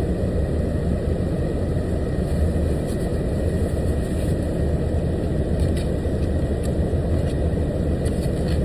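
Steady low rumble of an idling truck engine.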